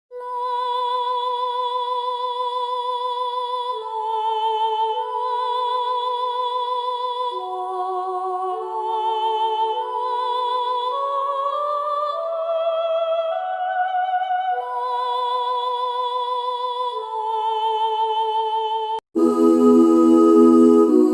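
A wordless solo melody of slow, held high notes with a steady vibrato, stepping up and down in pitch. About 19 seconds in it cuts off and a fuller, lower, chord-like ambient music begins.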